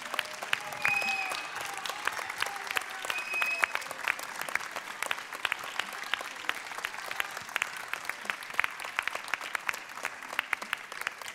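Audience applauding, a dense patter of hand claps that thins slightly near the end.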